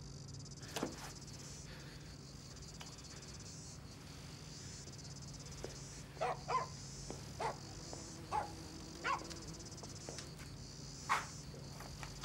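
Crickets chirring steadily, with a dog barking about seven times in short calls from about six seconds in.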